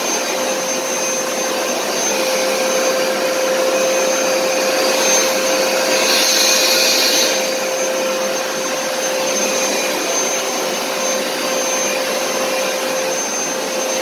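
Hoover SmartWash automatic carpet cleaner running steadily with a motor hum, pushed and pulled over carpet as it sprays solution and sucks it back up. A hissier stretch comes about six seconds in and lasts a second or so.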